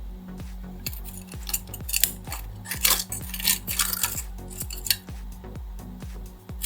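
Small hard metal pieces clinking and scraping against each other in quick irregular clicks for about four seconds, over background music with a steady beat.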